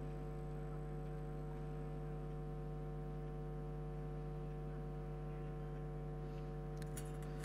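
Steady electrical mains hum, a low buzz of many even steady tones, with a couple of faint clicks near the end.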